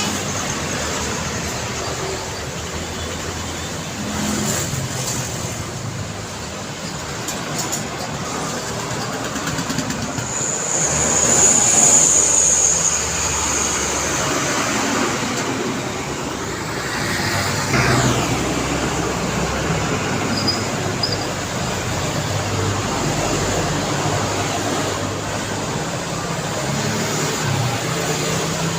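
Daytime city road traffic: a steady stream of vehicles passing. One vehicle swells loudest about 12 seconds in, and another passes with a falling pitch a few seconds later.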